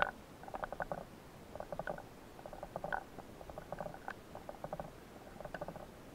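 Short runs of rapid clicking, recorded underwater, coming about once a second.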